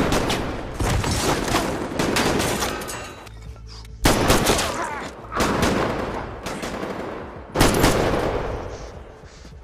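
Rapid automatic gunfire in a film shootout, coming in sustained volleys, one at the start, one about four seconds in and one near eight seconds, each trailing off. A music score runs underneath.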